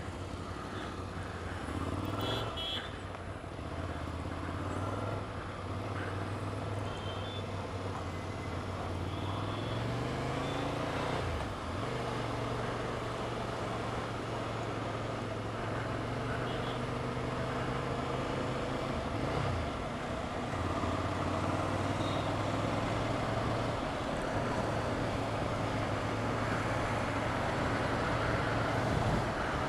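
Motorcycle engine running steadily under the rider, with the hiss of surrounding road traffic. About ten seconds in its pitch rises under acceleration and then drops back abruptly.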